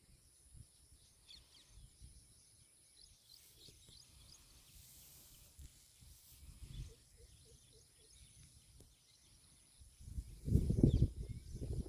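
Quiet outdoor ambience with faint, short bird chirps in the first few seconds. About ten seconds in, a burst of loud, low rumbling noise takes over.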